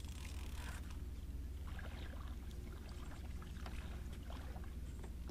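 Water lapping and splashing around an aluminum jon boat, with faint irregular ticks about a second and a half in, over a steady low rumble.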